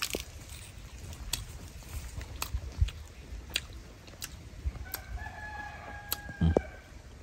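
A rooster crowing once, starting about five seconds in and lasting over a second, over scattered sharp crunches and clicks of a baby monkey biting into a star fruit.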